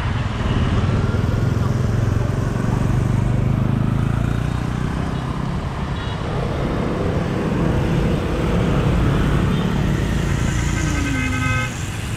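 City street traffic, mostly scooters and motorbikes running past with a steady low engine rumble. A short horn toot sounds about a second before the end.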